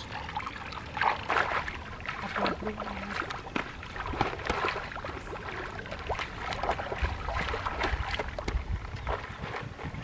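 Shallow stream water splashing and sloshing irregularly as bare feet wade through it and hands feel along the bottom.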